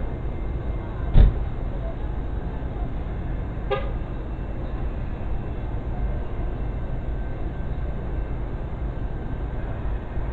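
A vehicle engine idling steadily, a constant low drone. A sharp thump about a second in is the loudest sound, and a brief higher-pitched tone comes just under four seconds in.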